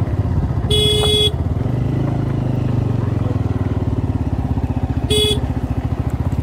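Motorcycle engine running steadily while riding, with two short horn beeps: one about half a second long about a second in, and a shorter one near the end.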